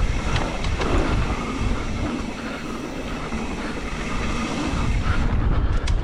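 Mountain e-bike riding down a dirt trail: wind buffeting the microphone and tyres rumbling over the ground, with clicks and rattles from the bike. The noise eases a little about two seconds in and builds again near the end.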